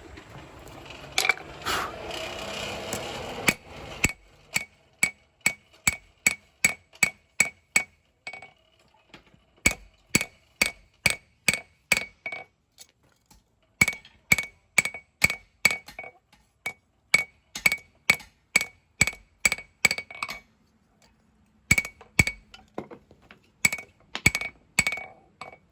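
Hand hammer striking hot steel on an anvil while forging a knife blade: runs of sharp, ringing blows about two a second, with short pauses between runs. A steady rushing noise comes before the first blows.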